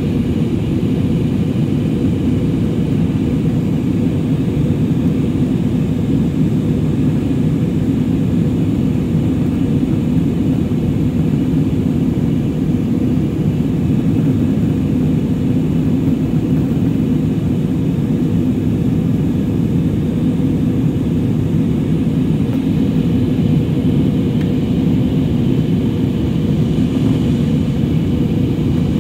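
Airliner cabin noise: the steady low roar of the engines and airflow heard from inside the cabin, unchanging throughout.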